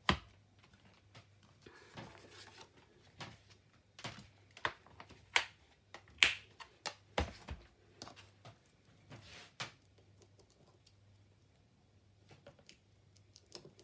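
Scattered light clicks and taps of paper-crafting stamping supplies being handled, lifted and set down, a few sharper knocks in the middle.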